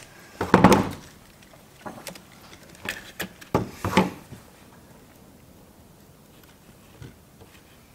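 Wire cutters and electrical wires being handled on a workbench: a few sharp clicks and knocks in the first four seconds, the loudest about half a second in.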